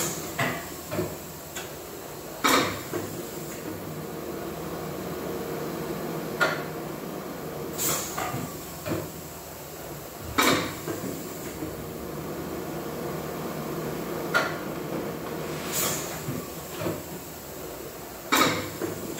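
Factory workshop sound: a steady machine hum with irregular sharp clacks and knocks every few seconds from work going on nearby.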